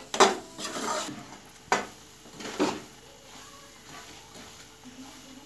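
Slotted metal spatula stirring and scraping semolina against a steel pan as it roasts in ghee, three sharp scrapes in the first three seconds, then quieter.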